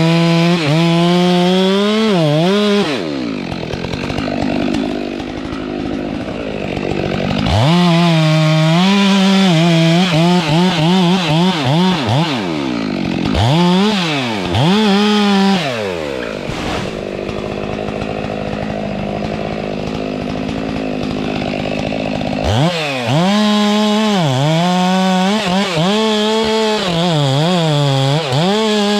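Stihl MS 462 two-stroke chainsaw working at high revs, its pitch repeatedly dipping and recovering under load, dropping off to a lower, quieter running twice, a few seconds in and again around the middle, before revving back up.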